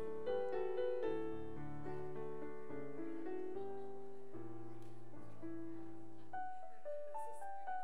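Slow keyboard music in held, sustained chords over a low bass line. The bass drops out about six and a half seconds in, leaving only the higher notes.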